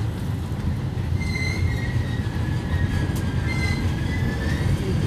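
Electric commuter train running, heard from inside the front car: a steady low rumble of wheels on rail, with a thin high-pitched wheel squeal that starts about a second in, wavers in pitch, and fades near the end.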